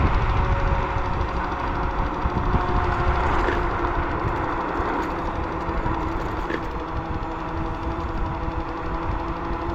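A motor vehicle running steadily on the move: a low rumble with a few steady whining tones over it.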